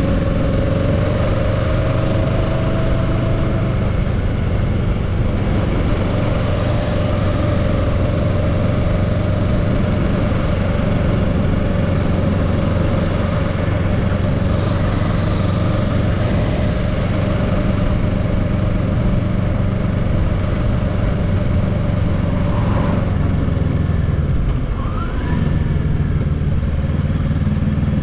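2022 Kawasaki Z650's 649 cc parallel-twin engine running steadily under cruise at about 30 mph, heard from the rider's seat with wind and road noise. The engine note dips briefly near the end.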